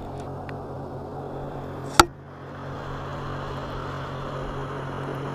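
Steady drone of a motorboat engine running on the river, with a single sharp click about two seconds in.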